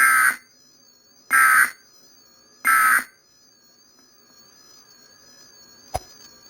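Emergency Alert System end-of-message tones: three short bursts of buzzy digital data signal, about a second and a quarter apart, marking the end of the alert broadcast. A faint click near the end.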